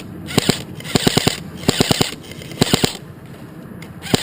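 Airsoft rifle firing short rapid bursts of three to five shots, about five bursts in quick succession with a brief lull near the end.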